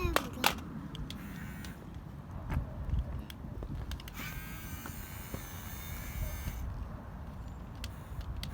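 Small electric motors of a radio-controlled toy excavator buzzing, with a few clicks.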